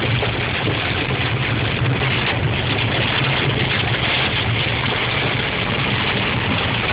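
Rain and hail pelting the car, heard from inside the cabin as a steady hiss over the constant low drone of the engine and tyres on a wet road.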